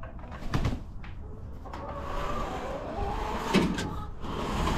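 A flock of chickens making low, wavering calls that overlap, with a couple of short knocks, one about half a second in and one in the second half.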